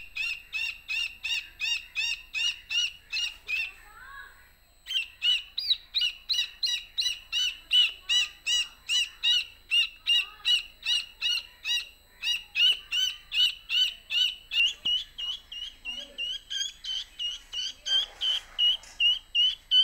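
A chicken chick peeping over and over: short high peeps at about two to three a second, with a pause of about a second some four seconds in.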